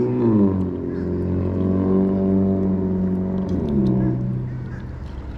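Motorboat engine running, its pitch dropping as the revs fall about half a second in, holding steady, then dropping again near four seconds in as it eases off.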